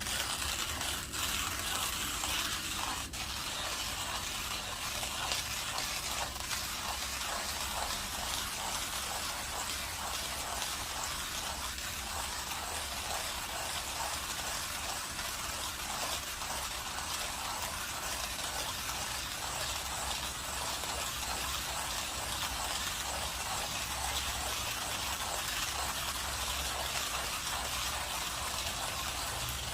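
Saint Anthony Industries Millwright hand coffee grinder being cranked slowly to grind 18 g of beans fine for espresso: a steady, unbroken grinding of beans between the burrs.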